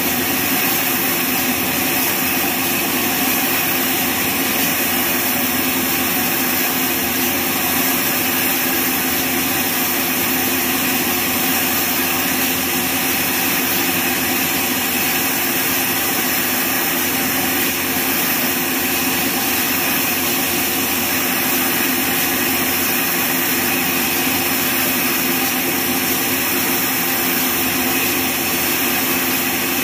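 Horizontal band sawmill's blade cutting lengthwise through a neem log: a steady mechanical drone with a held pitch over the hiss of the cut, even in level with no pauses.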